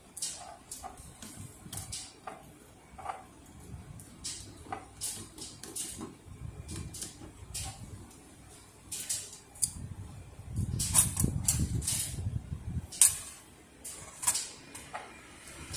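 Hands handling the metal parts of a Ricoh copier's fuser cleaning-web unit: scattered light clicks and taps of metal parts, with a run of low dull thuds and a sharp click near the end.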